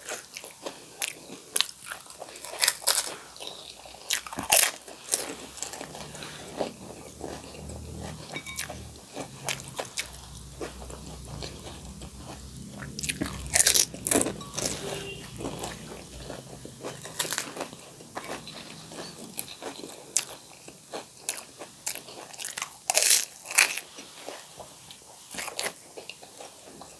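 Pani puri being eaten: the crisp, hollow fried puris crack under the teeth in repeated, irregular sharp crunches, with chewing between the bites.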